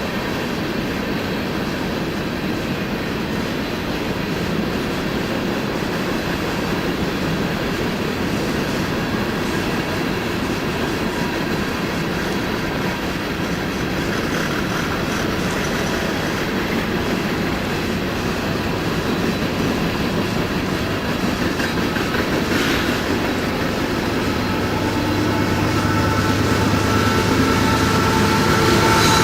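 Union Pacific freight train cars rolling past, steady rumble and clatter of wheels on the rails. Near the end a thin, high squeal of the wheels joins in and grows louder.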